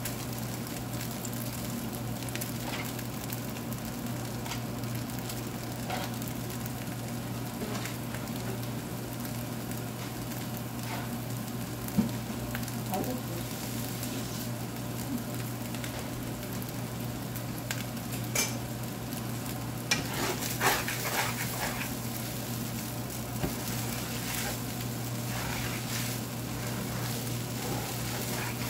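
Fried rice sizzling in a stainless-steel frying pan while a wooden spoon stirs and folds it, with a few sharp knocks of the spoon against the pan along the way.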